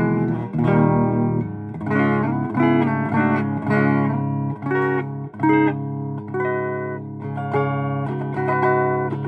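Esquire-style electric guitar played clean through a Fender Deluxe Reverb amp with a touch of reverb, the pickup selector in the middle position: a run of picked chords and single notes, each ringing on before the next.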